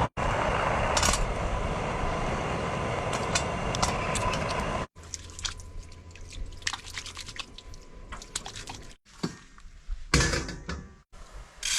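Coal fire in a firewood camp stove with its electric blower turned up, a steady loud rushing with a low hum. After about five seconds it gives way abruptly to a quieter stretch of scattered clicks and knocks, with a brief loud clatter near the end.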